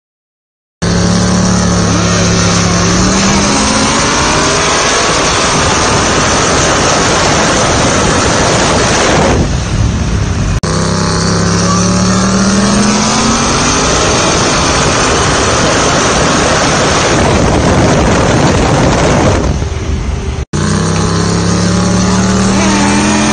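Engines at full throttle in a street roll race from 60 mph, the pitch climbing over and over through the revs under heavy wind noise. The sound starts about a second in and breaks off abruptly twice, near ten and twenty seconds, where separate runs are joined.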